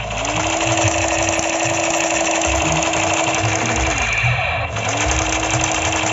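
Battery-powered toy AK-47 firing its electronic full-auto sound effect: a fast, steady rattle with a held tone that rises in as the trigger is pulled and drops away when it is released. There is a long burst of about four seconds, a short break, then a second burst of about two seconds.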